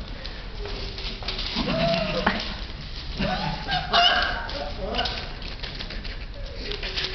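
Four-week-old Alaskan Malamute puppies giving a few short rising-and-falling whines and yelps, the clearest about two seconds and three and a half seconds in, over the scrabbling and rustling of paws on newspaper.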